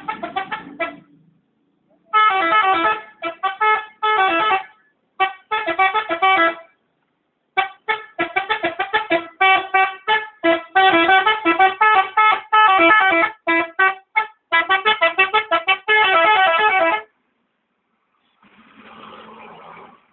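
Telolet multi-tone musical horn of an Armada Jaya Perkasa bus, playing a long run of quick, chopped notes in phrases separated by short pauses, loud, for about seventeen seconds. A fainter noise follows near the end.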